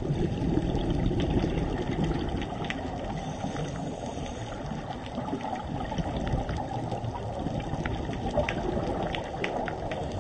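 Underwater reef ambience picked up by a camera in its housing: a steady, muffled low rush and bubbling of water, with many short sharp clicks scattered through it.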